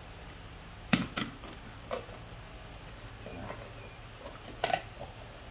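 Plastic screw lid being twisted shut on a large jar: a few sharp clicks and knocks, the loudest about a second in and a quick pair near the end.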